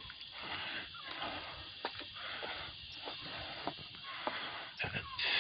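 A person's footsteps on pavement, a few light, irregular steps over a steady hiss.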